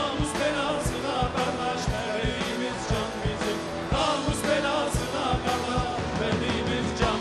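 Live folk-rock band music: an electric bağlama playing the melody over electric guitar and a drum kit keeping a steady beat.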